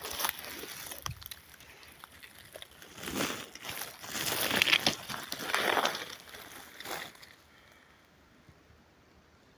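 Irregular rustling and crackling of dry material, in surges, that dies away about seven seconds in.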